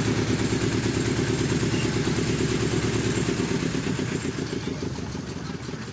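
A small engine running steadily with a rapid, even beat. It grows a little fainter near the end.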